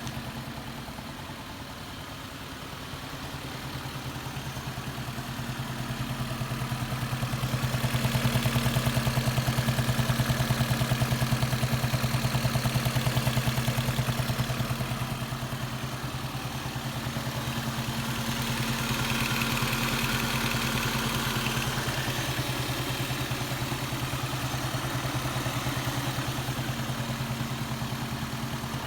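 Second-generation Lexus IS300 engine idling with a steady, rhythmic clunking knock running through its hum. The noise has been growing worse, and the owner fears it may be rod knock. It grows louder for a stretch in the middle and again later on.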